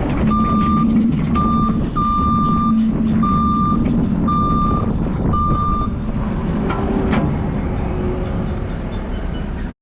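Backup alarm on a diesel work vehicle beeping about seven times over the steady running of its engine, showing the vehicle is reversing. The beeps stop about six seconds in while the engine keeps running, and the sound cuts off abruptly just before the end.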